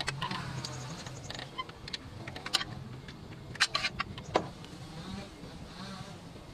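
Metal hand tool clicking and knocking against engine parts, with a few sharp clinks near the middle, over a steady low hum.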